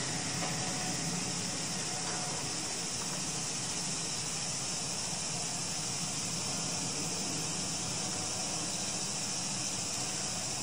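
Steady hiss over a low hum from a single-car KiHa 125 diesel railcar idling, standing at the platform.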